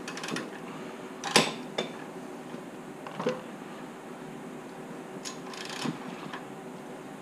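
Short metal clicks and knocks from a wrench on the crankshaft bolt, turning a Honda B16A2 engine over by hand in small nudges to line up the timing marks. About half a dozen, in small clusters; the loudest comes about a second and a half in.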